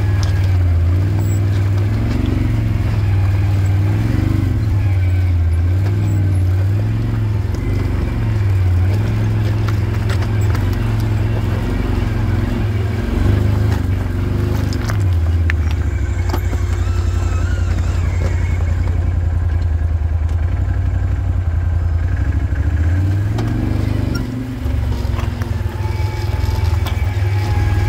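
Vehicle engine running at low speed, its pitch rising and falling as the throttle is worked over rough ground.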